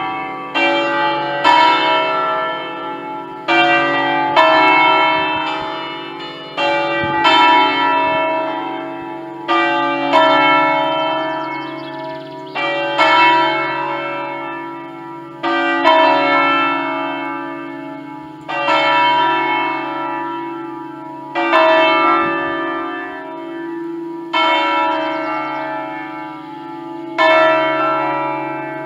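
A ring of five church bells in D, cast by Pruneri in 1953 and swung electrically on their wheels, ringing in full. Each stroke rings out and fades over a steady hum. The strokes come irregularly and close together in the first eight seconds, then settle to about one every three seconds.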